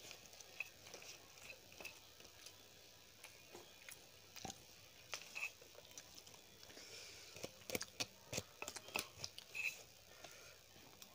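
A person chewing a mouthful of yellow rice close to a clip-on microphone: faint, irregular mouth smacks and clicks, thickest about eight seconds in.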